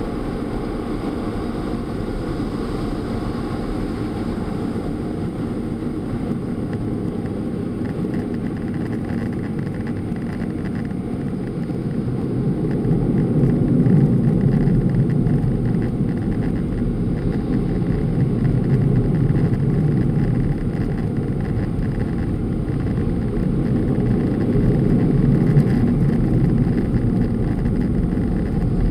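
Automatic car wash heard from inside the car: a steady rush of the wash over the car, growing louder about twelve seconds in as the car passes the air dryer blowers.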